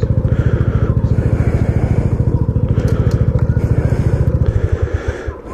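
Honda Biz 125's single-cylinder four-stroke engine idling through a ProTork V3 aluminium sport exhaust packed with glass wool, with a loud, even exhaust beat of about a dozen pulses a second. About five seconds in, the beat falters and stops.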